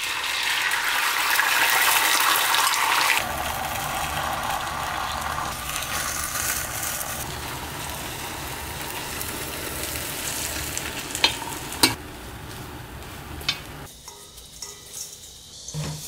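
Beaten egg with chopped vegetables poured into a hot oiled square egg-roll pan, sizzling loudly at first and then frying steadily. A few sharp clicks as a metal spatula and spoon knock the pan while the omelette is rolled. Near the end there is quieter rustling of sliced vegetables tossed by hand in a steel bowl.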